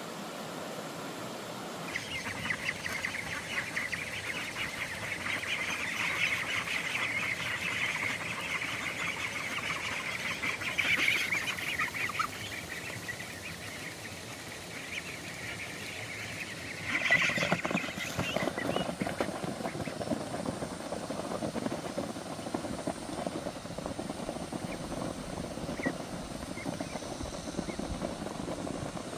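A flock of domestic ducks quacking and chattering. The calls are busy and high-pitched at first, then turn to lower, throatier quacking about two-thirds of the way through.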